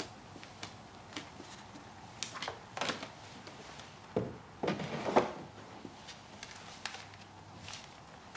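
Indoor handling sounds: drawers and cupboard doors being opened and shut in a search, with scattered light clicks and a few louder knocks and thuds between about two and five seconds in.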